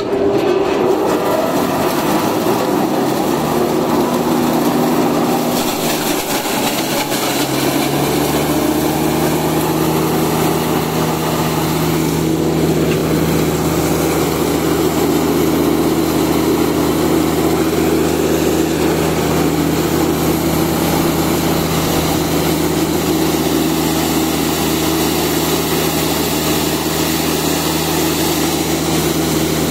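Electric hammer mill grinder running under load as it grinds whole ears of dried corn: a loud, steady machine noise. A deeper steady hum settles in about eight seconds in.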